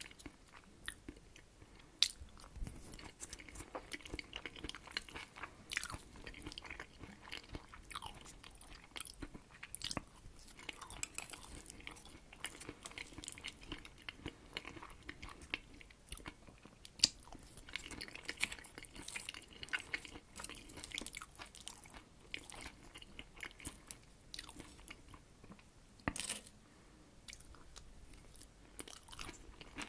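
Close-miked chewing of herring under a fur coat salad: soft, wet mouth sounds with many irregular small clicks and smacks. A few sharper clicks stand out, the loudest about two-thirds of the way through.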